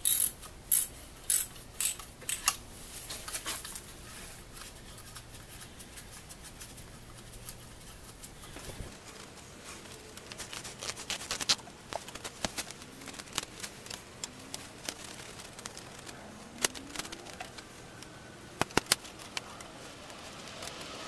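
Socket wrench ratcheting in short runs of sharp clicks as the mounting bolts of a new Briggs & Stratton Magnetron ignition coil are tightened down against the flywheel gap. The loudest clicks come in the first couple of seconds, then scattered clicks and taps of tools on the engine follow.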